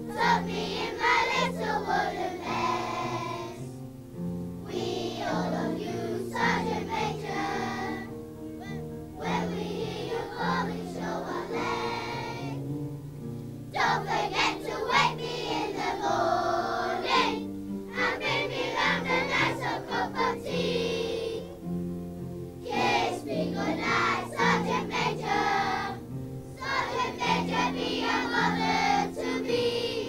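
Children's choir singing a song over instrumental accompaniment, in phrases of a few seconds separated by short breaks while the accompaniment carries on.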